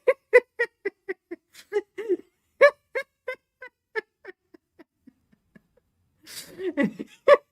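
A person laughing: a long run of short, rhythmic 'ha' pulses that grow fainter and trail off, followed by a breathy intake near the end.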